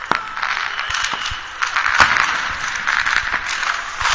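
Fireworks and firecrackers going off across a city at the New Year, a continuous crackling and popping with a few sharper bangs: near the start, about two seconds in, and about three seconds in.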